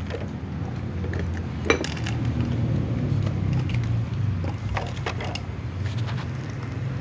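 Dry cat kibble clicking on a hard floor and being crunched by several cats eating, in scattered sharp clicks. The loudest comes a little under two seconds in. A low steady rumble lies underneath.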